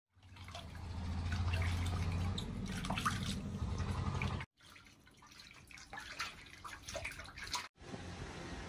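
Water sloshing and dripping as a baby monkey is washed by hand in a metal basin, with scattered small splashes. A steady low hum runs under the first half. The sound breaks off abruptly twice.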